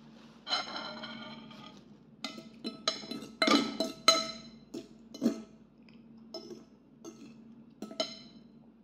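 Metal spoon and fork clinking against a ceramic bowl: one ringing clink about half a second in, then a quick run of sharp clinks and scrapes, loudest in the middle, with a few fainter ones near the end.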